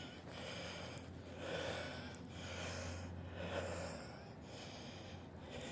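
A person breathing heavily while walking, with a breath about every second and a half. A low hum runs under the first few seconds.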